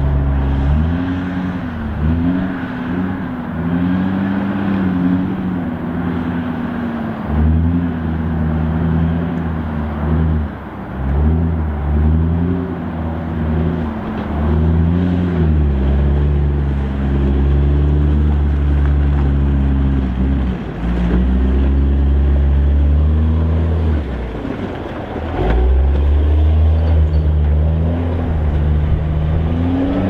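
Diesel engine of a Hydrema 922C articulated dump truck labouring as it drives through deep mud, its engine speed repeatedly rising and falling under load, with a heavy low rumble.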